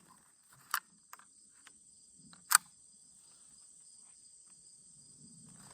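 Three sharp metallic clicks from a Winchester Model 77 .22 rifle's action being worked, the last the loudest, as a cartridge that failed to fire from a light primer strike is cleared. Crickets trill steadily behind.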